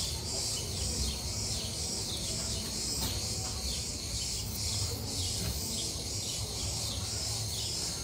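Outdoor insect chorus: a steady high shrill that pulses evenly, about two to three times a second.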